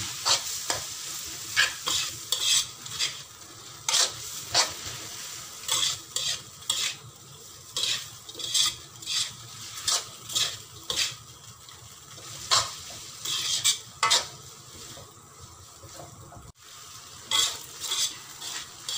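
Metal spatula scraping and clanking against a metal wok, about one or two strokes a second, while stir-frying rice vermicelli over a steady sizzle of frying.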